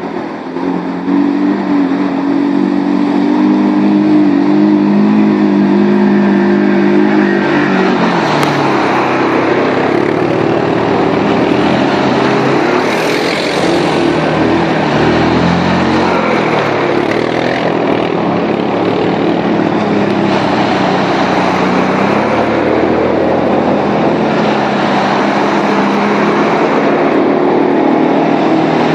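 Quad bike (ATV) engine running, with a steady note for the first eight seconds. From about eight seconds in, a loud rushing noise of splashing water joins it as the quad drives through water.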